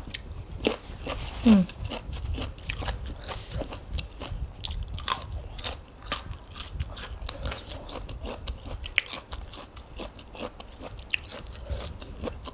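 Close-miked eating: biting and crunching a raw yard-long bean, then chewing mouthfuls of spicy rice-noodle salad, with many sharp wet mouth clicks and crackles.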